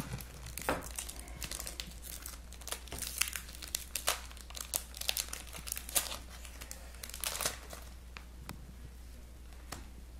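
Foil wrapper of a Pokémon booster pack being torn open and crinkled in the hands, with irregular crackling that thins out about seven or eight seconds in.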